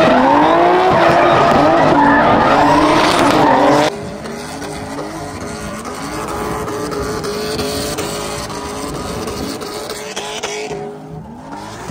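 Car drifting: the engine running at high revs while the tires squeal with a wavering pitch, loud for about four seconds, then cutting suddenly to a quieter stretch of the same kind of engine and tire noise.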